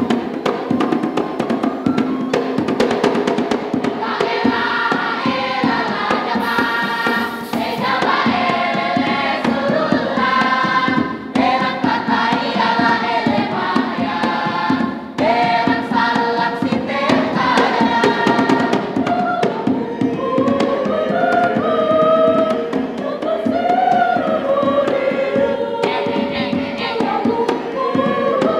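Choir singing a Makassar traditional song in several-part harmony, over a rhythmic clatter of percussion that is most prominent in the first few seconds.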